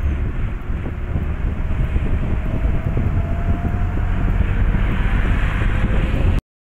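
Steady road and engine rumble heard from inside a moving car, with wind buffeting the microphone. It cuts off suddenly near the end.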